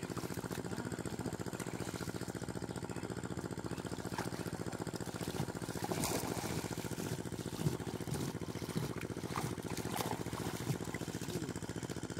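A small engine running steadily with a fast, even beat, with a few water splashes from people wading through shallow muddy water, most plainly around the middle.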